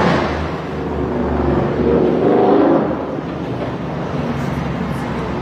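Street noise with a vehicle engine running, a steady low hum, growing louder for a moment about two to three seconds in.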